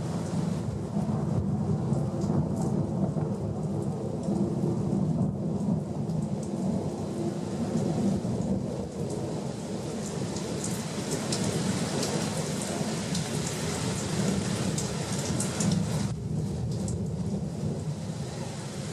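Heavy tropical rain falling steadily, with a low, continuous rumble of thunder.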